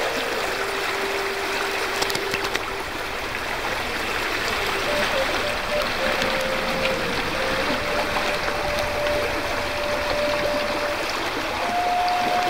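Steady rush of water from a shallow stream running over gravel, with a slow melody of long held notes laid over it.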